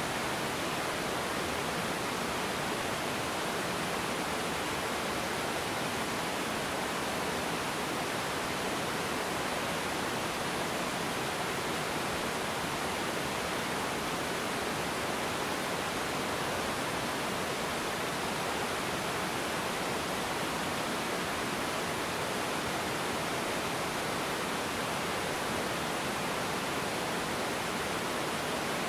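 A low river waterfall pouring over rocks, a steady, even rush of water.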